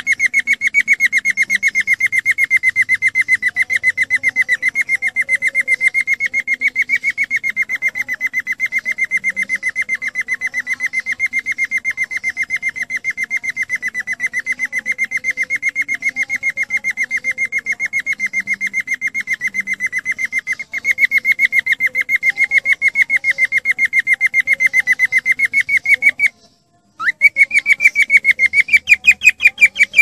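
Cockatiel calling in a long, unbroken run of rapid, evenly spaced whistled chirps at one steady pitch. The run breaks off briefly near the end, then starts again slightly higher.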